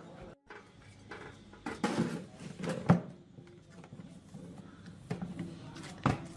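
A few sharp knocks and clinks spread across a few seconds, the loudest about three seconds in, like utensils or kitchenware being handled.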